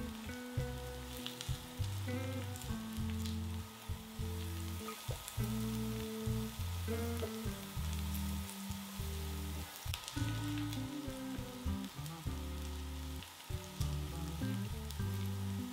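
Chopped onion and garlic sizzling in oil in a frying pan as they are stirred, with scattered crackles throughout. Background music with a low, changing bass line plays under it.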